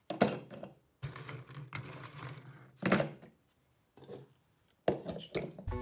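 Dry cocoa biscuits dropped by hand into a plastic chopper bowl, clattering against the plastic and against each other in a handful of separate dry knocks with short pauses between.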